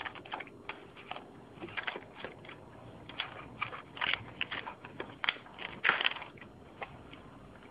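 A cat crunching Iams cat food from a foil tray: an irregular run of sharp crunching chews, thickest and loudest about four to six seconds in.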